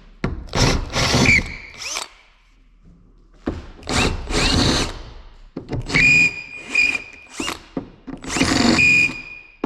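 Power drill run in several short bursts, its motor whine rising and falling with the trigger, drilling out and cleaning up holes in a fibreglass panel. There is a short pause between bursts about two seconds in.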